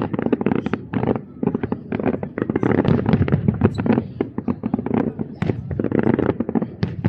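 Fireworks display in full swing: rapid aerial shell bursts and crackle, many bangs in quick succession over a continuous low rumble.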